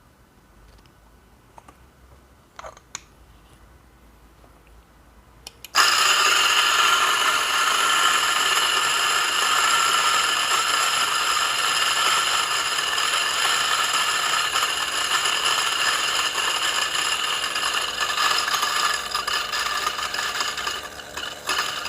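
DF64 flat-burr espresso grinder grinding coffee beans through its 64 mm stainless steel burrs. It starts abruptly about six seconds in after a few light clicks, grinds loudly and steadily, and grows uneven in the last couple of seconds.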